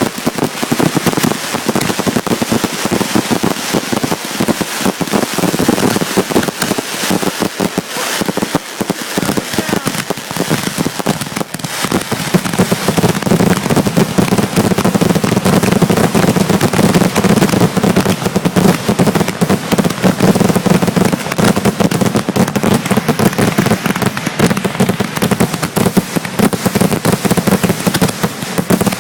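Fireworks grand finale: a dense, rapid barrage of shells launching, bursting and crackling, with no gaps. From about halfway through, a steady low rumble runs under the bursts.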